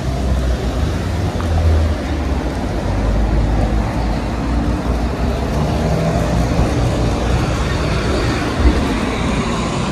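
Motor traffic passing close by on a city street, dominated by the low rumble of a truck's engine, with one brief knock near the end.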